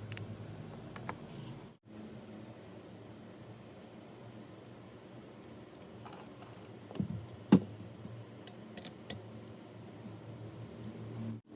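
Small clicks and taps of hand work on a phone at a repair bench, with one short, high electronic beep about two and a half seconds in and the sharpest tap about seven and a half seconds in.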